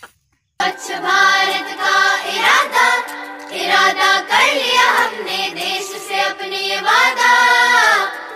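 A song with sung vocals over held musical notes, starting suddenly about half a second in after a brief silence.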